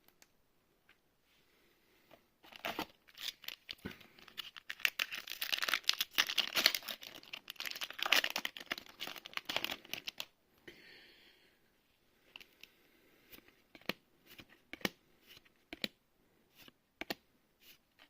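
A Magic: The Gathering booster pack's plastic-foil wrapper being torn open and crinkled, from about two and a half seconds in until about ten seconds. This is followed by a run of separate light clicks and snaps as the cards are handled.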